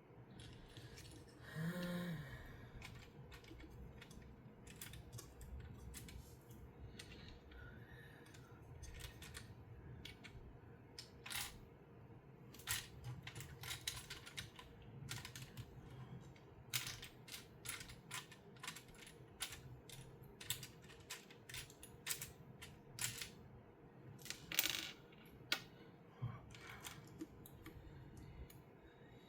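Small plastic Lego pieces clicking and tapping irregularly as they are handled and pressed into place.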